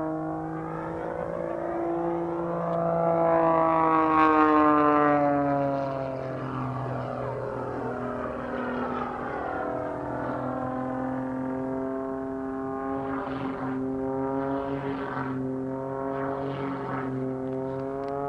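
Pitts S-1-11B Super Stinker aerobatic biplane, its Lycoming six-cylinder engine and propeller droning overhead. The pitch rises to its loudest about four seconds in, then falls and settles to a steadier, lower note as the plane manoeuvres.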